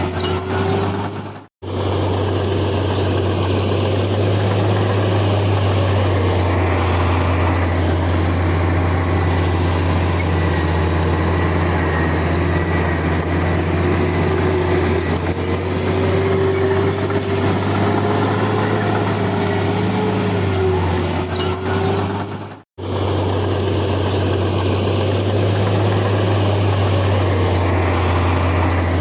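Heavy earthmoving machine's diesel engine running steadily under load, with a wavering whine above the low drone. The sound drops out abruptly twice for a moment.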